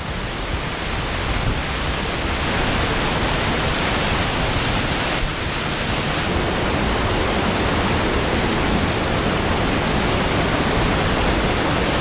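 Misol-Ha waterfall in heavy flow, pouring down at close range: a loud, steady rush of falling water.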